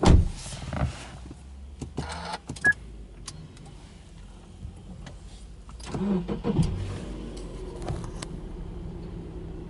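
Subaru Legacy B4 2.5i's 2.5-litre flat-four engine being started, heard from inside the cabin. There is a thump at the start, then a few clicks and a short chime. About six seconds in, the starter cranks briefly and the engine catches, then settles into a steady idle at about 1,000 rpm.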